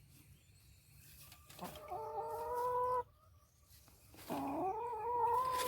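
A chicken giving two long, drawn-out calls, each rising briefly and then holding steady for over a second.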